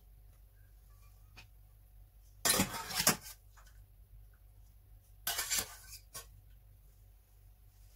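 Two short bursts of kitchenware clatter, about two and a half and five and a half seconds in, as cooked instant noodles and then boiled pak choy are served from the pot into a ceramic bowl.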